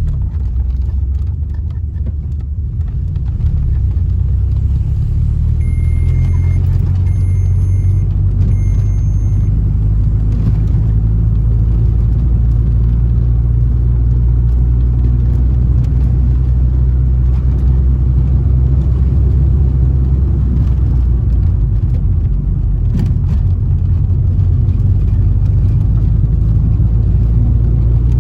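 Steady low rumble of a car driving, heard from inside the cabin. Three short high beeps come about six to nine seconds in.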